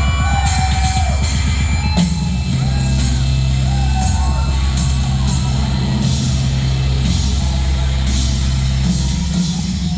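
Live industrial music played loud over a concert PA, with heavy bass and drums and a sharp hit about two seconds in.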